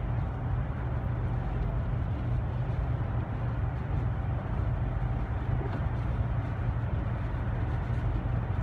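Steady road noise inside a moving car's cabin: the engine and tyres droning evenly on a wet, snow-covered highway.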